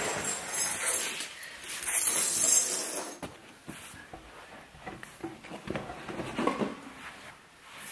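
A large shag rug being flipped over and dropped onto an anti-slip mat on a tile floor: two loud swishes of heavy fabric in the first three seconds, then softer rubbing and shuffling as hands smooth the pile flat.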